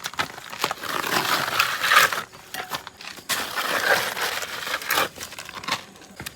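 Steel trowel spreading and scraping sand-and-cement mortar across a brick wall in long gritty strokes, with small knocks between them.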